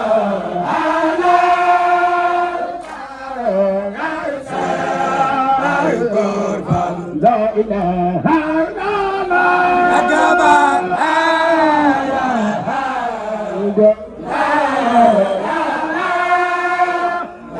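Sufi devotional chant (Baye Fall zikr) sung by a group of men in long melodic phrases, a lead voice carried over a loudspeaker, with short breaks between phrases.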